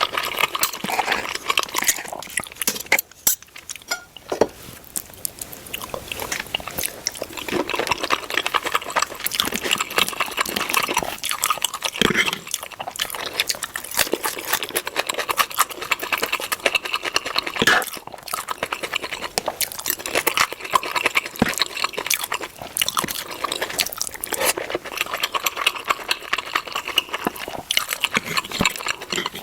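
Close-up sounds of steak: a dense, continuous crackle of wet, crunchy chewing and sizzling, with a few sharper snaps along the way.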